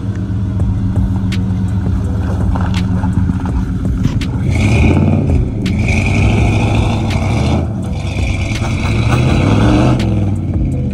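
1993 Chevy K1500 pickup's engine working under load as the truck climbs a steep dirt bank. From about four seconds in, the spinning tyres add a hiss and scrape of thrown dirt, and the engine revs up near the end.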